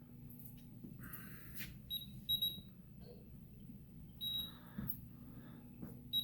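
A fire alarm panel's piezo buzzer gives four short, high-pitched electronic beeps at uneven intervals, one a little longer than the rest. Faint rustling and a low hum lie underneath.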